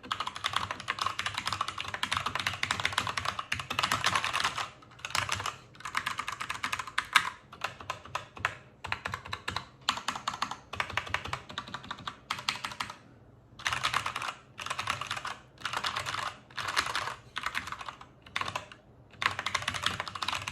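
Typing on a Keychron K8 mechanical keyboard with Gateron Brown tactile switches: rapid key clacks in runs of a second or two, broken by short pauses.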